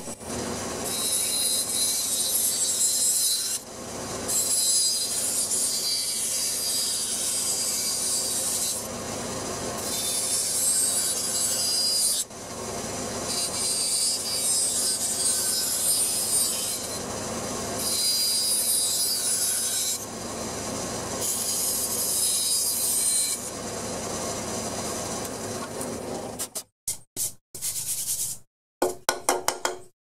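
Bandsaw cutting through plywood in a series of cuts, each pass a rasping few seconds of blade in wood, with quieter running between passes. Near the end the sound breaks off in short gaps.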